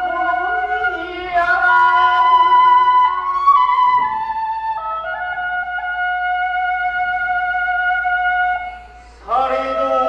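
Kagura bamboo flute (fue) playing a slow melody of long held notes that bend and step between pitches, with a short break near the end before it comes back in.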